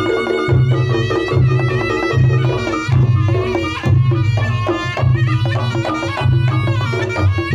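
Reog Ponorogo ensemble music played loud through a sound system. A wavering high melody, typical of the reog slompret shawm, runs over heavy low gong and drum pulses that come about once a second.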